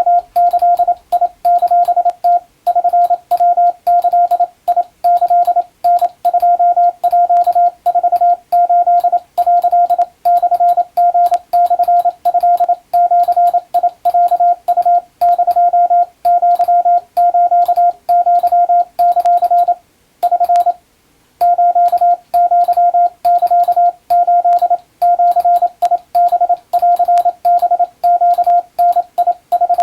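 Morse code (CW): a single mid-pitched beep keyed on and off in dots and dashes, sending Japanese wabun telegram text for receiving practice, with a short break about twenty seconds in.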